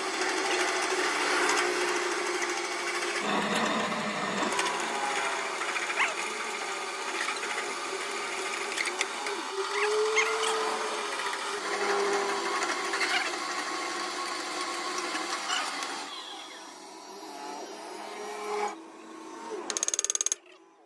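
Workshop machine tool running, with a steady motor hum, metallic scraping and scattered clicks. It eases off about three-quarters of the way through, and a brief high whine follows near the end.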